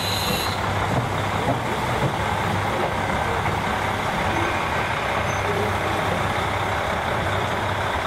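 KiHa 40 diesel railcars moving slowly past: steady diesel engine drone over wheel and rail noise, with a few light clicks in the first couple of seconds.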